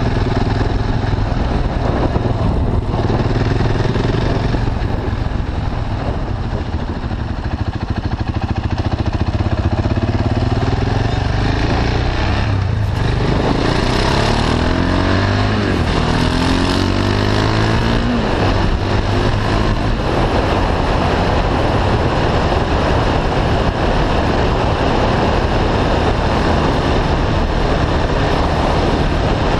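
KTM 690 Duke's single-cylinder engine running through an Akrapovic slip-on exhaust with the catalytic converter bypassed, heard on the move. About halfway through it revs up and down through several gear changes, then holds a steady cruise with wind noise.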